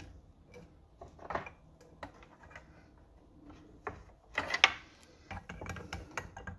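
Small metal parts clicking and knocking as an electric skateboard motor mount and motor are handled and fitted onto the truck, with a louder cluster of knocks about four and a half seconds in.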